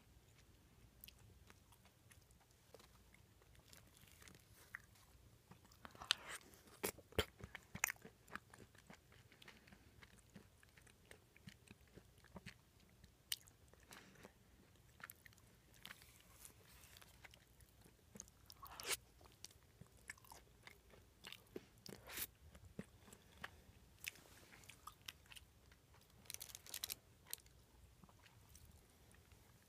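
Close-miked chewing and mouth sounds of a person eating: irregular wet clicks, smacks and crunches with short quiet gaps between.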